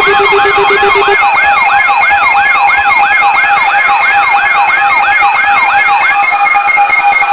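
Electronic siren yelping about three times a second over several rapid beeping alarm tones. A lower beep drops out about a second in and the yelp stops about six seconds in, leaving only the beeping.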